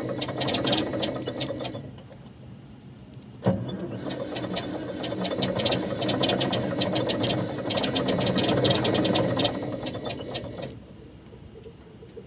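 Cold diesel engine of an old wheeled compactor running hard with a heavy rapid clatter, smoking black just after a cold start. It eases to a lower idle about two seconds in, gives one sharp crack at about three and a half seconds, revs up again, and drops back to idle near the end.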